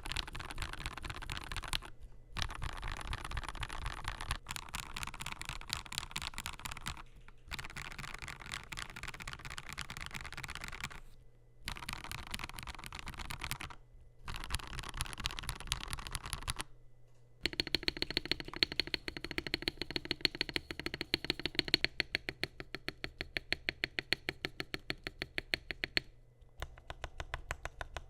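Typing on a Kemove K87 1980 mechanical keyboard with lubed Gateron Red and Silver linear switches in a stainless steel plate, under PBT keycaps. It comes in fast bursts with brief pauses. About two-thirds of the way through, it changes to a rapid, evenly spaced run of single key presses for several seconds, then goes back to typing near the end.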